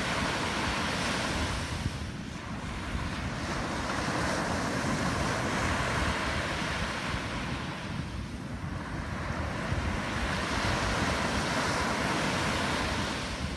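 Surf breaking and washing up a sandy beach, swelling and easing over several seconds, with wind rumbling on the microphone.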